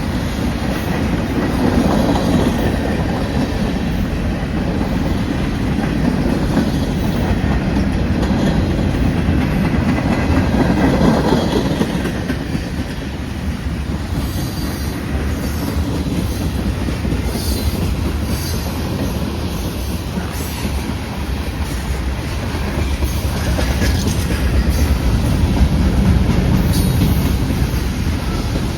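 Freight train cars rolling past on the rails: a steady rumble of wheels on track that swells and eases, with light clatter and faint wheel squeal.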